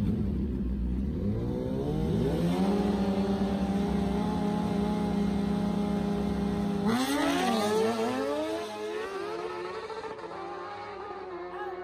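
Two sport-bike engines held at steady high revs on the drag-strip start line. About seven seconds in they launch: the pitch climbs and drops through quick gear changes, then fades as the bikes pull away down the track.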